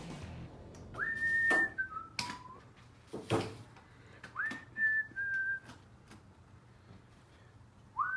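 Someone whistling a few short phrases, each a quick rise to a held note that then steps down to lower notes, with a sharp knock between the first two phrases.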